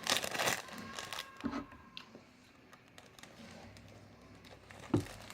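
Packaging crinkling briefly as a squishy toy is pushed back into it, then faint handling noises and a single knock near the end.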